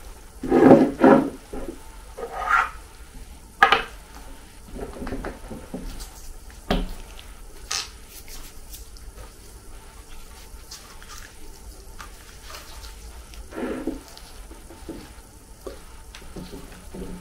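Glass vials, a perfume bottle's cap and a syringe handled and set down on a wooden tabletop: scattered clicks and knocks, the loudest in the first second or so, with a few sharper clicks after that.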